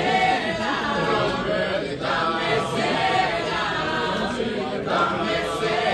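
A group of voices singing together unaccompanied, in phrases with short breaks between them.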